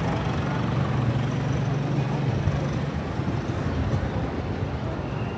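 Midtown city street traffic: a steady low rumble of vehicle engines and tyres with general street noise.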